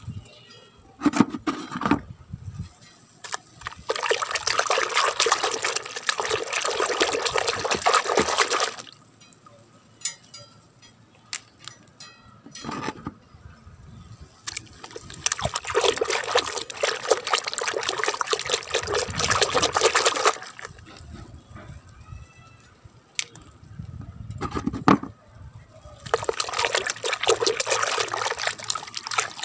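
Soapy water in a plastic bucket splashing and sloshing as a hand swishes plastic toy animals through it. It comes in three long bouts of several seconds each, with scattered small knocks and drips in the quieter gaps.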